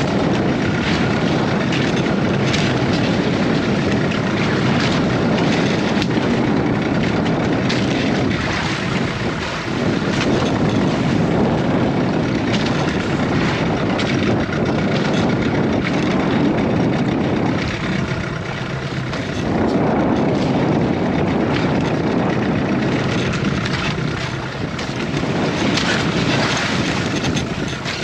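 Fishing boat's engine running steadily, mixed with rushing water and wind noise, with brief dips in level a few times; the engine is kept running to hold the boat against a strong current.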